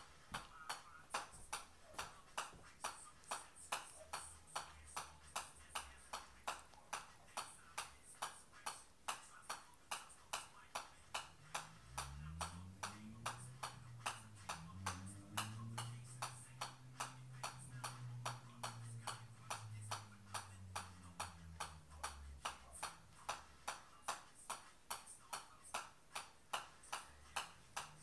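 A golf ball bouncing on the steel face of a pitching wedge in a steady rhythm of about three sharp pings a second. In the middle a low hum rises in pitch, holds, then fades away.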